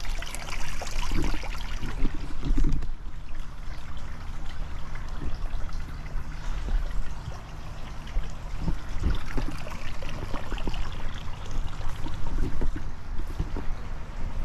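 Rubbing and rustling from a GoPro strapped to a moving dog's back, with a low rumble and scattered knocks as she walks through plants and over gravel.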